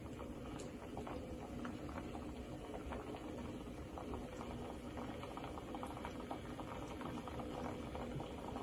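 Thick tomato sauce boiling in a saucepan: faint, steady bubbling with many small pops.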